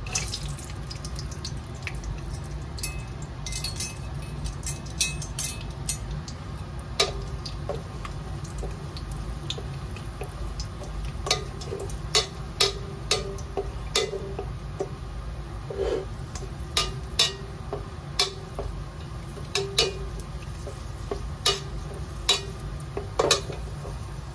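Cashew nuts frying in hot ghee in a stainless steel pot, a faint sizzle under a low steady hum. A slotted spoon clinks and scrapes against the steel pot many times at irregular moments as the nuts are stirred, more often in the second half.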